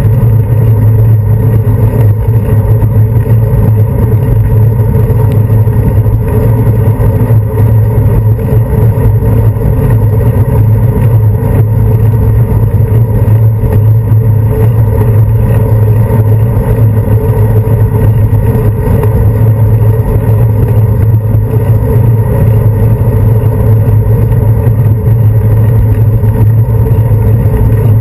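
Wind and road vibration on a handlebar-mounted GoPro Hero 2 camera while a bicycle rides along a paved path: a loud, steady noise with no letup.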